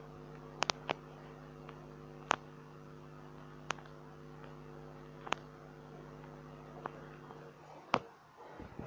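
A steady low hum with several sharp, short clicks scattered through it; the hum stops a little before eight seconds in.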